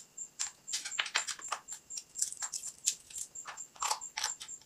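Irregular plastic clicks and taps from a toy RC truck's handheld remote as its battery cover comes off and two batteries are pressed into the compartment.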